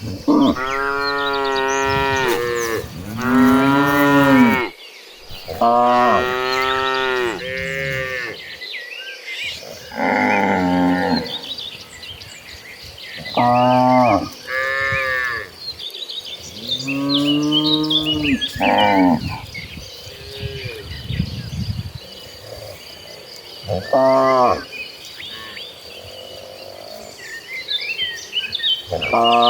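A herd of cattle mooing, one cow after another, in about ten long, drawn-out calls with short gaps between them.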